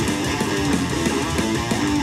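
Electric guitar played through a small combo amplifier: a continuous run of notes that change several times a second.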